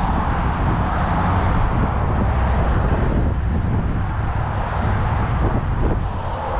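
Steady street traffic noise mixed with wind rumbling on the microphone.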